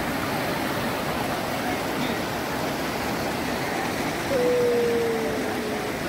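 Rushing water of waterfall rapids, a steady rush with crowd voices under it. About four seconds in, a single held tone sounds for about a second and a half, falling slightly in pitch.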